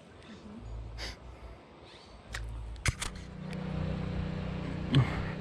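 A few sharp clicks, then from about three seconds in a steady low engine hum of a vehicle that grows louder.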